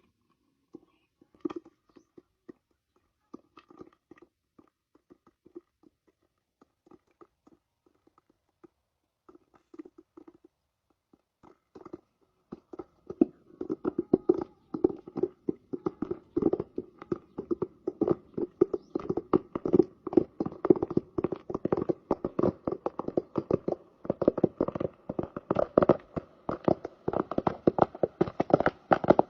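Popcorn kernels popping: scattered single pops at first, building about halfway through into a dense, rapid run of pops.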